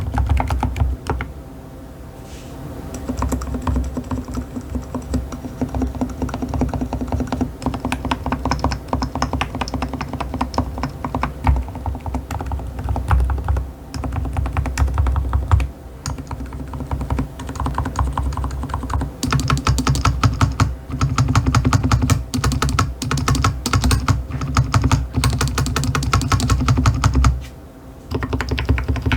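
Continuous fast typing on a Keychron K8 Pro Max mechanical keyboard with Keychron K Pro silent white switches: a dense run of muted keystroke clacks. The typing pauses briefly near the start and again near the end.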